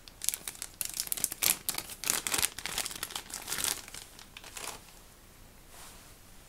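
Thin clear plastic packaging bag crinkling and crackling in the hands as it is opened and the small fabric toy curtains are taken out. The crackling stops about five seconds in, with one faint rustle after.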